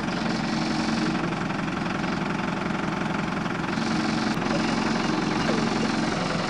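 Ford truck's engine running steadily at low revs, its firing pulses even throughout.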